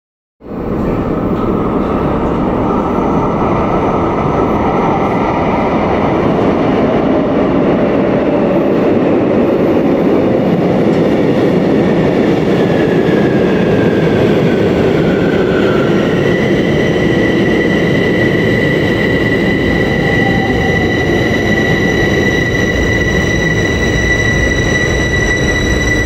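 Bucharest Metro Bombardier train at an underground platform: a loud, steady rail and machinery noise. A brief falling whine comes midway, then a steady high-pitched whine sets in about two-thirds of the way through and holds.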